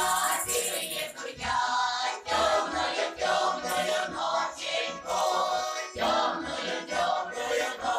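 A group of voices singing a folk song together in phrases, with a jingling rattle shaken around the start.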